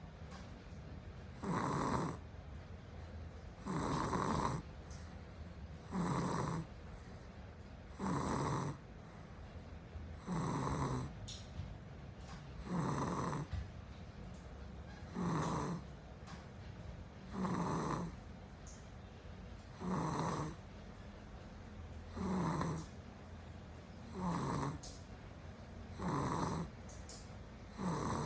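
A small child snoring steadily, one snore about every two seconds with quieter breathing between.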